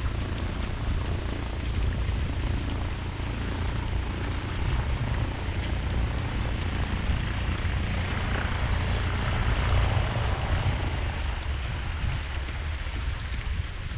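Floatplane's propeller engine droning as the plane comes in on the water, swelling about two-thirds of the way through, over wind buffeting the microphone.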